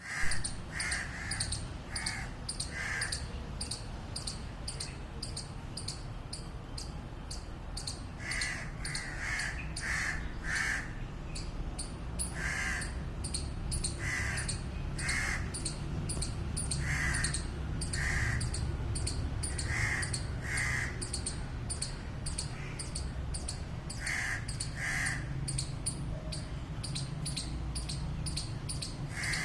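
Squirrel giving a long run of short, sharp alarm calls, about two or three a second, some in groups of two to five with a lower, fuller tone, over a low steady rumble.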